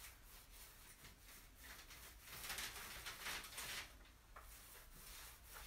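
Faint gritty rubbing of a paint roller working a stone-fleck coating across a laminate countertop, louder for a second or so in the middle.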